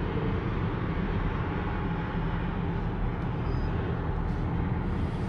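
Steady road and engine noise of a car heard from inside its cabin while driving.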